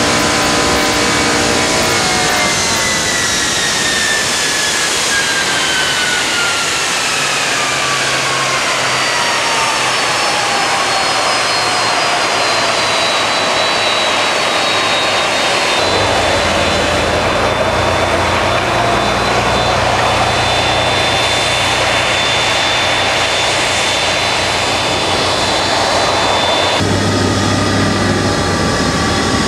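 MD-10 jet engines running with a loud whine. For the first ten seconds or so the whine falls steadily in pitch as the engines slow, then it holds as a steady high whine over a low hum. The sound shifts suddenly twice.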